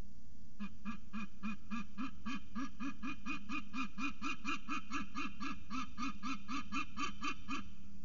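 Young peregrine falcon honking: a rapid, even series of harsh calls, about four a second, starting about half a second in and stopping shortly before the end.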